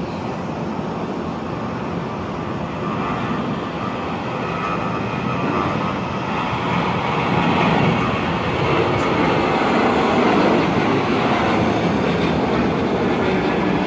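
Jet airliner engines running, a steady rumble with a faint whine that grows louder over several seconds and stays loud.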